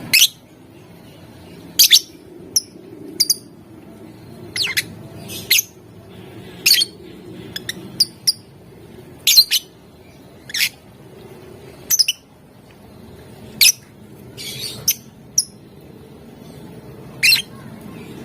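Lovebird giving short, shrill chirps and squawks one after another at irregular intervals, some in quick pairs, over a low steady background hum.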